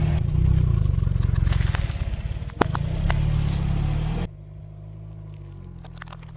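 Car engine running low and steady, with a single sharp crack about two and a half seconds in. After about four seconds the sound drops abruptly to a quieter, steady engine rumble.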